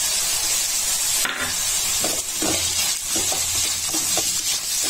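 Vegetables sizzling in hot oil in a nonstick pan: grated carrot, capsicum and onion frying with a steady hiss, while a spatula scrapes and stirs them through the pan from about halfway in.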